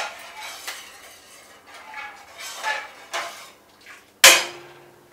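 A spoon stirring pasta in a cooking pot, with scrapes and light clinks against the pot, then one loud metallic clang a little after four seconds in that rings briefly.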